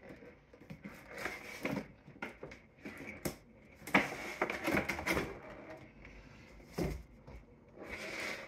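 Plastic packaging rustling and crinkling in irregular bursts as a boxed figure is taken out, with a couple of sharper clicks and taps near the middle.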